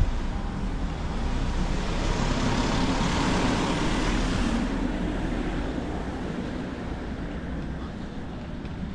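A road vehicle passing by on a town street: its noise swells to a peak about three to four seconds in, then fades, over a steady traffic background.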